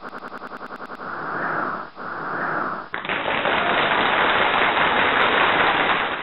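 Slideshow animation sound effects: a rapid even ticking, about nine ticks a second, until about a second in, then two swells of noise about a second each, then from about three seconds a loud, steady rush of noise.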